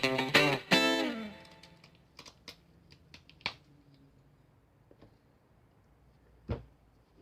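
Guitar music with plucked notes, its last chord ringing out and fading about a second in. After that, a few faint scattered clicks, with a slightly louder knock about six and a half seconds in.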